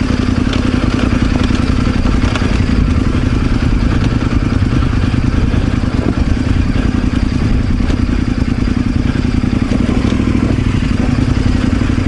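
Off-road motorcycle engine running at a steady pitch as the bike rides down a rocky dirt track, with light clatter from the bike over the stones.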